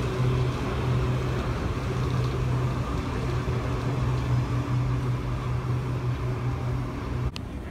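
Otis Hovair air-cushion people mover moving along its guideway: a steady low hum over a wash of broad noise, which cuts off suddenly near the end.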